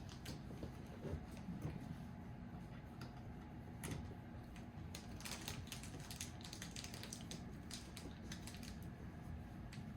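Faint, scattered light clicks and small rattles of plastic kit parts and screws being handled and fitted together by hand.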